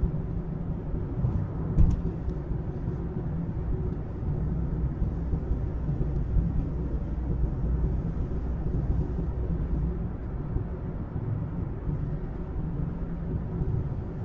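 Car interior road noise while driving: a steady low rumble of engine and tyres, with one short knock about two seconds in.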